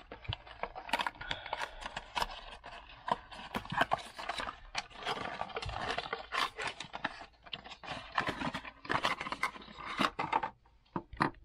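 A cardboard retail box being opened and handled by hand, rustling, with irregular clicks and taps as the plastic RC wheels inside are pulled out and knock together.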